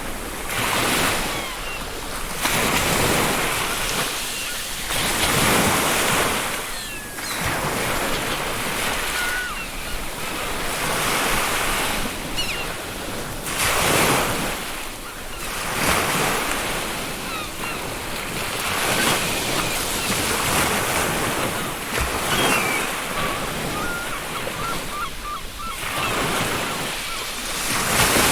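Ocean surf breaking and washing up a beach, swelling and ebbing every two or three seconds, with faint short seagull calls now and then.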